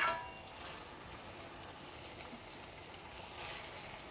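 A metal clink of a steel spoon against the pan at the start, then the faint, steady sizzle of cooked chicken keema in a hot pan, with the spoon scraping as the keema is scooped out onto a steel plate near the end.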